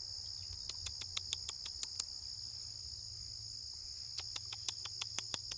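Steady high-pitched chorus of insects, typical of crickets, with two runs of quick sharp clicks, about seven a second: one in the first two seconds and another near the end.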